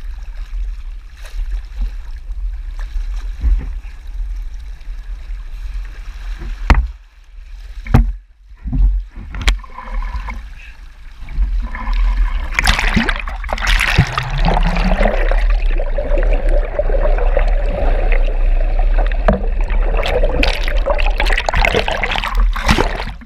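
Sea water splashing and rushing around a camera dipped at and under the surface beside a boat's hull, with a few sharp knocks in the first half, and a loud churning rush from about halfway through as the lens goes under. A low steady rumble runs underneath.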